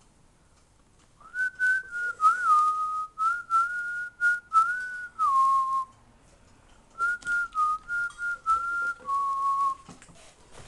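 A person whistling a short tune in two phrases, the notes sliding from pitch to pitch, each phrase ending on a lower held note. There is a pause of about a second between the phrases.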